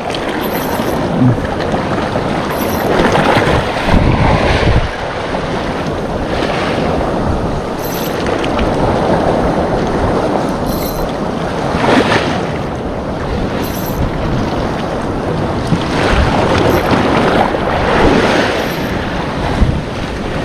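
Sea waves washing against the shore with wind buffeting the microphone. The noise surges and eases every few seconds.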